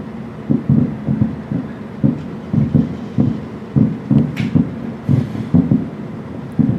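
Aerial firework shells bursting in a rapid, irregular run of low booms, about three a second, with a sharper crack about four and a half seconds in.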